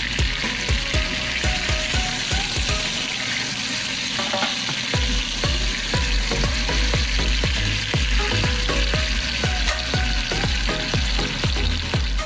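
Beef steaks sizzling in hot oil in a frying pan, with a steady hiss broken by frequent sharp pops and crackles of spattering fat.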